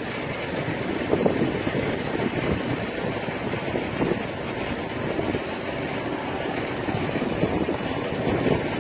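Steady rushing wind noise from gusts around a bushfire and its fire whirl, buffeting the microphone.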